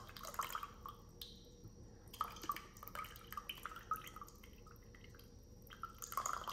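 A thin stream of liquid trickling and dripping as it is poured from a wearable breast pump's plastic collection cup into a small cup, faint and uneven.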